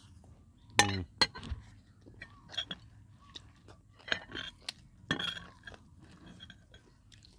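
Close-up eating noises: a loud slurp from a spoon about a second in, then chewing and crunching with scattered sharp clicks, louder again around four and five seconds in.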